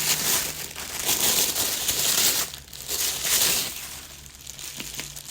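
Bubble wrap and plastic packaging crinkling and rustling as a purse is unwrapped by hand, busiest in the first few seconds and quieter near the end.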